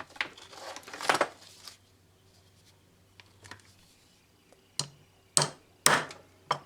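Metal tapping as a 14 mm socket is struck to drive a new oil seal down into a Honda distributor housing: some clicking and handling at first, then four sharp knocks about half a second apart near the end.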